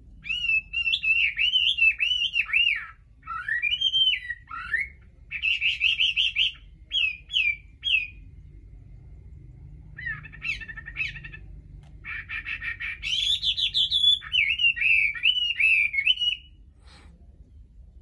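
Chinese hwamei singing a loud, varied song of rapid whistled phrases that glide up and down. It sings in bursts with a pause of about two seconds in the middle and stops shortly before the end.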